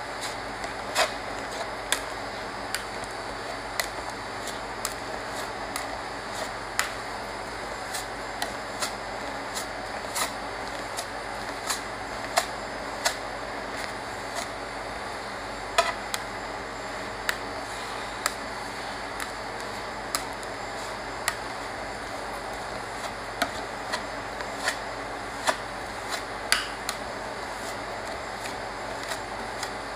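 Metal spatula scrapers scraping and tapping on a frozen steel ice-cream-roll pan as ice cream is spread flat and scored into squares: irregular sharp clicks, roughly one a second, over a steady hum.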